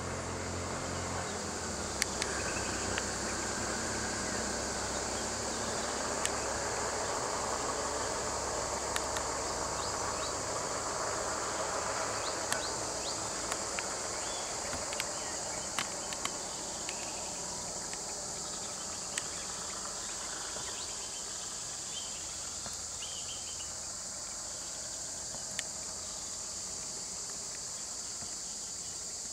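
Steady high-pitched chorus of insects. Under it, a vehicle engine's low hum fades away over the first ten seconds or so.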